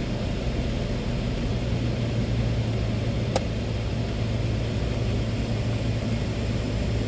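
Steady hum of a running vehicle engine and blower fan, heard from inside the cab, with a single sharp click about three and a half seconds in.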